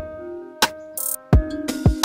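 Background music: an electronic beat of kick-drum thumps and snare or hi-hat hits over held keyboard notes.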